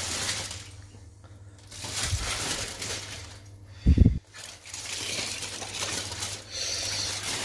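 Aluminium foil crinkling and rustling in bursts as it is peeled off a cooking pot. A short dull thump about four seconds in.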